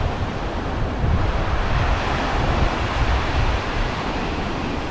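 Small surf breaking and washing up a sandy shore, swelling a little about a second in, with wind buffeting the microphone in a gusty low rumble.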